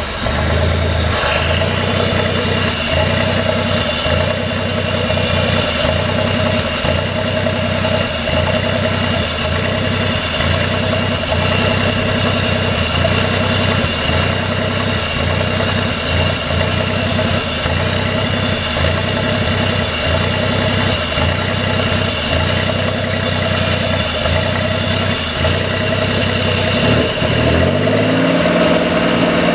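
Engine idling roughly with the EGR valve held open, stumbling in a regular rhythm about once a second as exhaust gas floods the intake. Near the end the idle rises and evens out.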